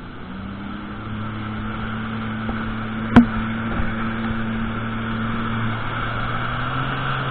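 Jet ski engine running at speed, rising in pitch within the first second and then holding a steady hum, with water and wind rushing. A single sharp knock about three seconds in.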